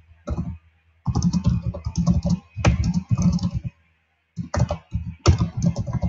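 Typing on a computer keyboard: quick runs of keystrokes with short pauses between them, about a second in and again around four seconds in.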